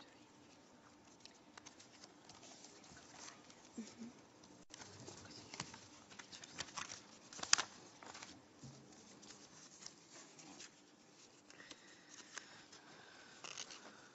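Faint, scattered small clicks, taps and rustling, with one sharper click about seven and a half seconds in.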